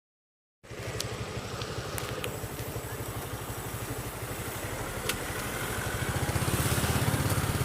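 A vehicle engine running steadily with a fast, even pulse, a few light clicks over it, growing gradually louder toward the end.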